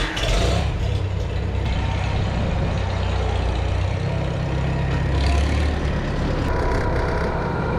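Farm tractor engine running steadily at idle just after being started, a heavy low rumble.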